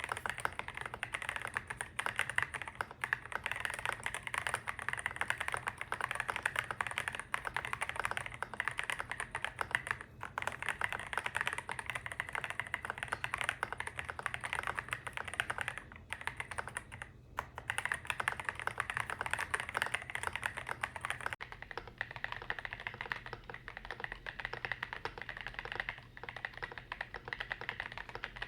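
Fast, continuous typing on an EPOMAKER RT65 mechanical keyboard with stock switches and Soymilk HSA keycaps: dense clacking keystrokes, with a brief pause about two-thirds of the way through. The first part is heard through an iPhone 15 microphone, and the last several seconds through a cheap $20 microphone.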